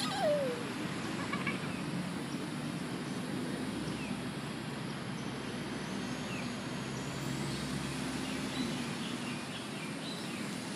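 Steady low outdoor background rumble, like distant traffic, with a toddler's short falling squeal right at the start and a few faint chirps.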